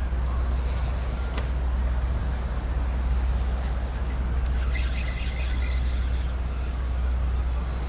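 Water pouring over a spillway: a steady low rumbling rush.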